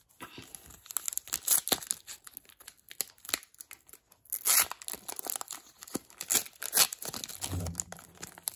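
Foil wrapper of a 2021 Panini Mosaic baseball card pack crinkling and tearing as fingers work it open, a run of irregular crackles with louder bursts about halfway through and near the end.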